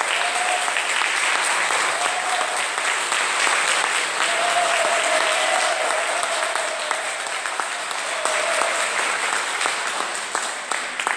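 A congregation applauding, long and steady, dying away at the very end.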